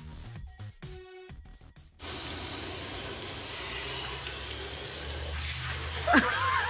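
Electronic background music for about two seconds, then a sudden cut to a steady hiss of spraying water. A child's high-pitched shrieks come in near the end.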